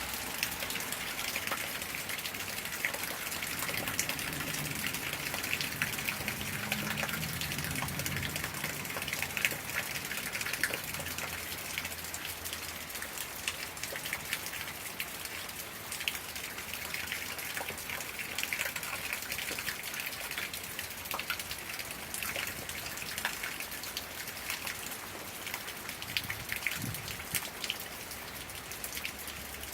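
Steady rain from a summer thunderstorm, with many individual drops ticking close by. A faint low rumble runs through the first ten seconds or so.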